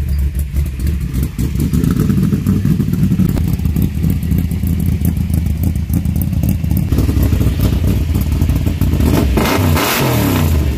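V8 engine of a 1955 Chevrolet sedan delivery running at a loud idle after an engine swap, revved up and back down once about nine seconds in.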